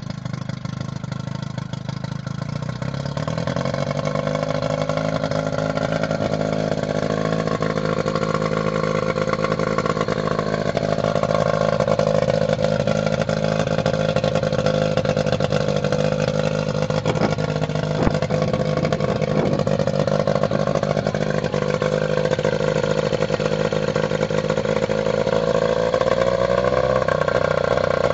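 40 hp outboard motor running after being started. Its pitch rises a few seconds in and then holds steady, with a further rise near the end.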